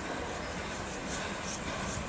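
A train moving slowly through the station: a steady rumble with short high squeals about a second and a second and a half in.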